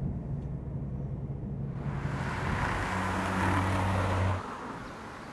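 A car driving past: its tyre and engine noise builds from about two seconds in, peaks with a low engine hum, and falls away sharply a little after four seconds.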